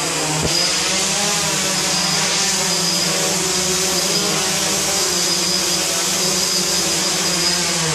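XK X380 quadcopter's four brushless motors and propellers whining steadily in a low hover, the pitch wavering slightly as the motor speeds shift. One brief knock about half a second in.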